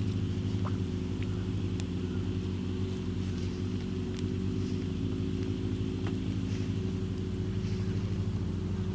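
Campfire crackling, with several sharp single pops spread through, over a steady low rumble.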